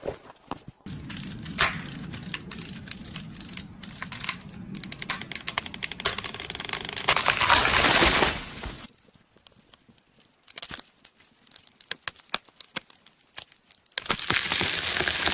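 Wood crackling and tearing as it is forced apart, a dense run of sharp cracks that grows louder over several seconds and then stops suddenly. A few scattered clicks follow, and near the end a different steady noise starts.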